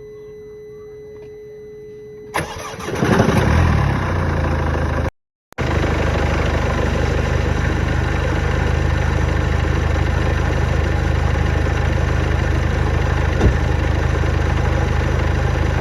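Mercedes W176 A-Class's OM651 four-cylinder diesel starting: a steady high hum for about two seconds, then the starter cranks and the engine catches and settles into a steady idle, with one brief dropout about five seconds in. The start-up noise is the owner's concern.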